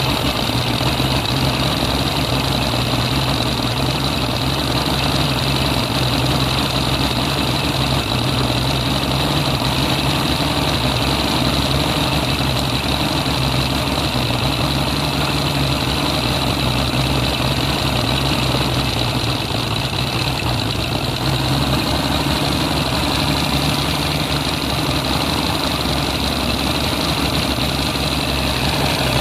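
Mercury 140 hp inline-six two-stroke outboard idling in forward gear with its cowling off, while the idle mixture screw of a freshly rebuilt carburettor is adjusted. Its steady note wavers for a couple of seconds about two-thirds of the way through, as the mixture is turned in toward a stumble.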